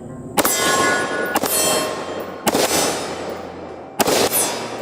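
Four AR-15 rifle shots fired about a second apart, each followed by a ringing metallic clang as steel targets are hit.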